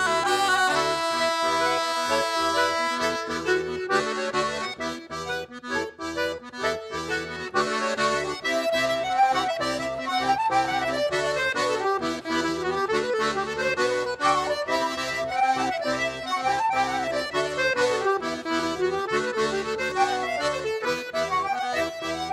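Traditional Breton dance music on accordion: a lively tune over a steady pulsing bass. It thins out and dips about five seconds in, then a melody line swings up and down in repeated phrases.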